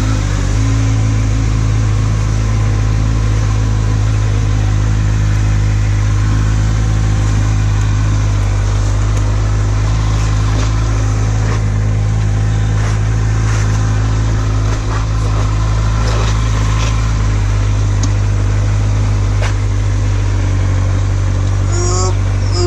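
Kawasaki Z800 inline-four engine running at a steady speed while riding, heard through a helmet- or bike-mounted GoPro with heavy wind noise over the microphone.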